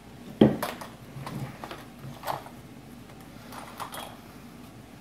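Handling noises from a phone on a tabletop: a sharp knock about half a second in, then a few lighter clicks and rubs as the iPhone 6 Plus is picked up and its screen wiped with a cloth.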